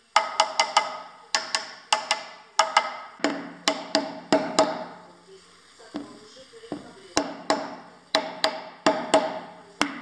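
Hammer blows driving a spindle bearing's outer race into its seat in the headstock of an LT-10M lathe. Bursts of sharp metallic strikes, each ringing briefly, about four a second, with a lull of a couple of seconds past the middle.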